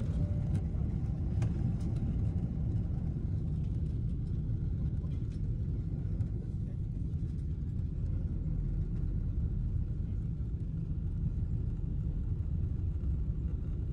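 Steady low rumble inside a Turkish Airlines airliner's cabin, with the plane on the ground just after landing at Istanbul.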